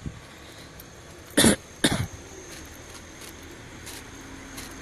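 A person coughing twice in quick succession, two loud short coughs about a second and a half in.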